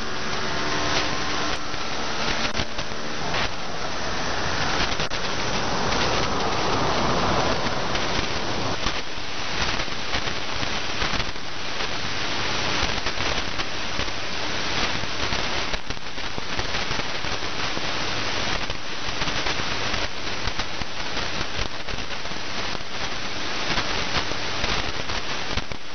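Shortwave radio receiver tuned to 9035 kHz, giving continuous hissing, crackling static with frequent clicks. A few steady tones at several pitches sound through the static for the first three seconds, then fade out.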